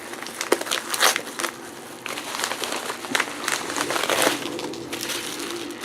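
Packaging crinkling and rustling as it is unwrapped by hand, in irregular bursts with a few sharper crackles.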